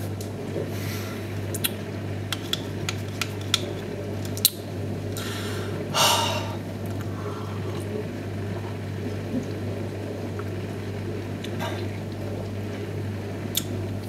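Someone drinking from a plastic cup: scattered small clicks and handling sounds, with a short noisy rush about six seconds in, over a steady low hum.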